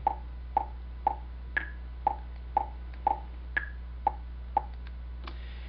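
Audacity-generated click track playing back at 120 beats per minute: short pitched clicks two a second, with every fourth click higher-pitched to mark the start of each bar. A steady low hum runs underneath.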